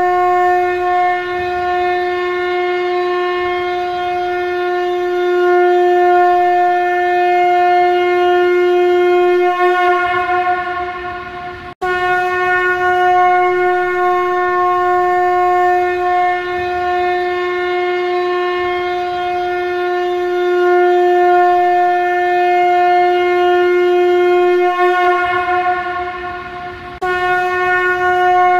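Shankha, the Turbinella pyrum conch shell, blown as a trumpet in long, steady single-note blasts with a rich, buzzy tone. One blast breaks off about twelve seconds in and the next starts at once; that one tapers away and a new blast begins near the end.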